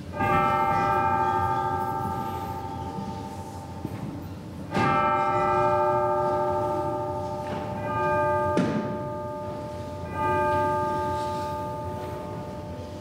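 A bell struck four times a few seconds apart, each strike ringing out clear and dying away slowly, with a short knock between the third and fourth. It marks the elevation of the consecrated host at Mass.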